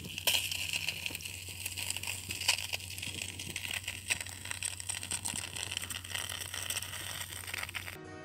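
Hydrogen peroxide fizzing and crackling with many small irregular pops as it foams over a blood-engorged tick. A steady low hum runs underneath.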